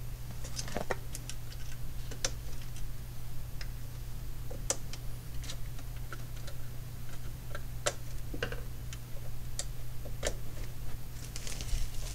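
Light, irregular clicks and taps of a sheet-metal shield being pressed and shifted on a monitor's metal chassis, coming faster near the end. A steady low hum runs underneath.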